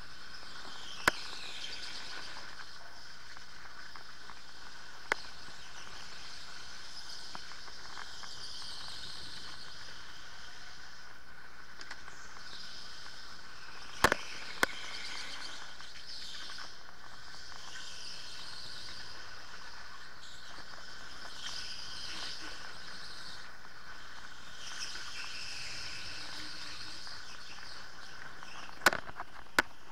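Onboard sound of an electric go-kart at speed: a high motor whine that swells and fades every few seconds over a steady hiss. A handful of sharp knocks cut through, the loudest about halfway through as the kart jolts, and two more near the end.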